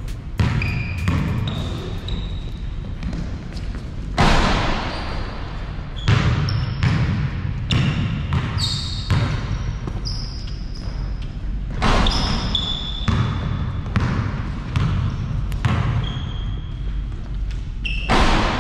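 Basketball being dribbled and bounced on an indoor court, with short high sneaker squeaks and a few louder thumps, about 4, 6, 12 and 18 seconds in.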